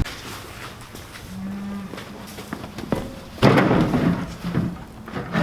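Young Highland cattle mooing in a pen: a short low moo about a second in, then a louder, longer moo just past halfway, followed by a softer one.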